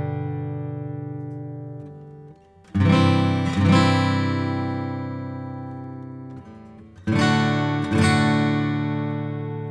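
Gibson J-45 True Vintage acoustic guitar, with a solid Adirondack spruce top and mahogany back and sides, playing slow strummed chords that are each left to ring and die away. There is a pair of strums about three seconds in and another pair about seven seconds in.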